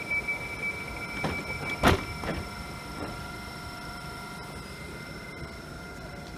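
Electric train at a platform: its door warning beeps stop, and the doors shut with a loud thud about two seconds in, followed by a few lighter knocks. The train then hums steadily.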